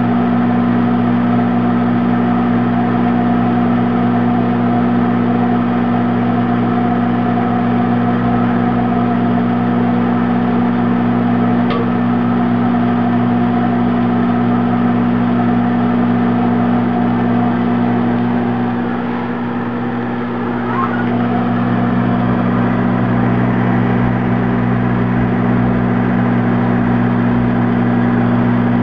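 Microwave oven running with a steady electrical hum while it heats an egg on the turntable. There is a single faint tick about twelve seconds in, and the hum dips slightly about twenty seconds in.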